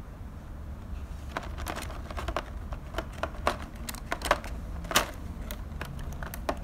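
Clear plastic blister packaging on a carded action figure clicking and crackling as a hand presses and shifts it. A run of irregular sharp clicks starts about a second in.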